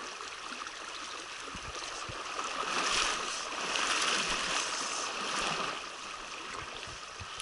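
Steady rush of a mountain trout stream flowing over rocks, swelling louder for about three seconds in the middle.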